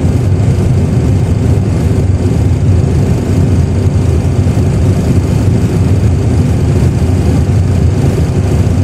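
Boeing 737 Classic full flight simulator reproducing the engines at takeoff thrust with runway rumble during the takeoff roll: a loud, steady, deep rumble.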